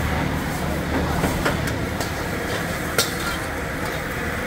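Gas wok burner running with a steady roar, while a metal ladle clanks against the steel wok several times as fried rice is stir-fried. The loudest clank comes about three seconds in.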